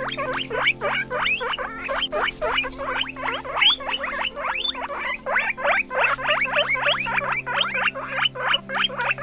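Guinea pig squeaking: a quick, unbroken run of short, high upward squeaks, about five a second, over a steady low drone.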